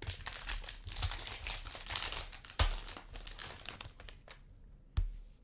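Plastic foil wrapper of a Panini Prizm basketball hobby pack being torn open and crinkled, in dense crackling for about four seconds. Two sharp knocks cut through it, a loud one about two and a half seconds in and another near the end.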